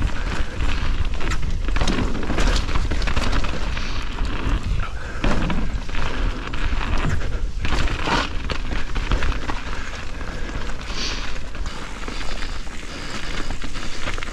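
Wind buffeting the microphone in a steady low rumble, with scattered knocks and rattles.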